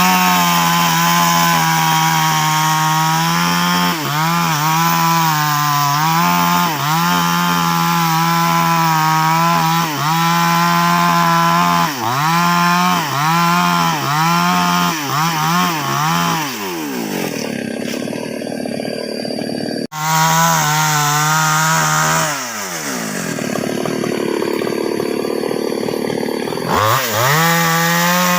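Two-stroke chainsaw at full throttle cutting through a sengon trunk, the engine pitch dipping briefly about once a second as the chain bites. Twice it drops back to idle for a few seconds and then revs up again.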